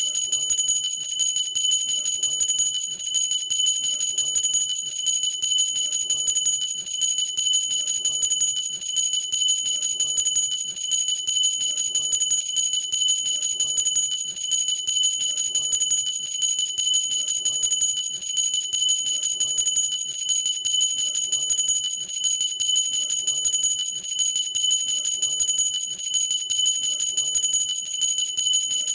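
Cut-glass hand bell rung without pause, its clapper striking the glass in an even rhythm and keeping up a steady, high ringing.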